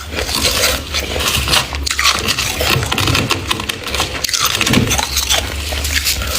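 Crisp freezer frost crunching and scraping, a dense run of sharp crackles.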